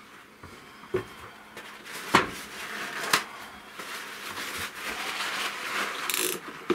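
Handling noise at a workbench: a few sharp clicks and knocks, the loudest about two seconds in, then cloth rustling as a rag is brought over and wrapped round the water pump, with a short noisy burst near the end.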